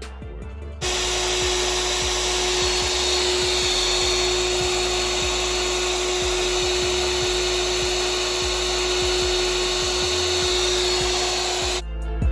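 Chicago Electric corded reciprocating saw (sawzall) running steadily at full speed on power from a 2000-watt modified sine wave inverter. It starts about a second in, holds one steady whine, and stops just before the end. Background music with a beat plays underneath.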